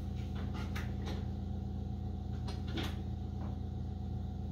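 Light, scattered knocks and clatter of kitchen drawers, cupboards and utensils as a spatula is searched for, about half a dozen short clicks over a steady low hum.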